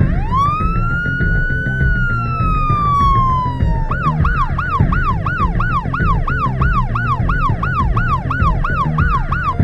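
Emergency vehicle siren: a slow wail that rises and then falls, switching about four seconds in to a rapid yelp of about three sweeps a second, over a steady low rumble.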